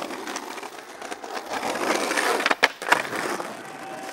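Skateboard wheels rolling over rough street asphalt and concrete pavement, a steady gritty rumble. A few sharp clacks come about two and a half to three seconds in.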